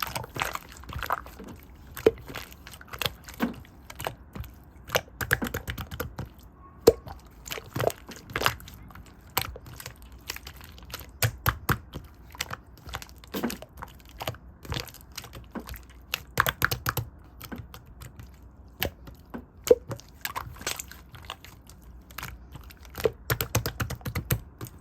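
Irregular small clicks, taps and crunchy handling noises, some sharper and louder than others, over a faint low hum.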